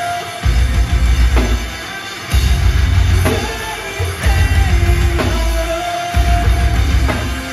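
Metalcore band playing live: distorted guitars, bass and drum kit in a heavy riff that hits in blocks about every two seconds, with brief breaks between.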